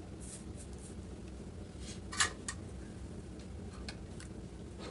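Steady low hum with a few faint clicks, and one short, sharp click about two seconds in followed by a smaller one, like small parts being handled on a workbench.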